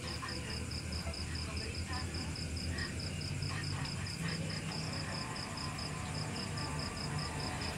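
A cricket-like insect chirping in a steady, evenly pulsed high trill, several pulses a second, over a low steady hum.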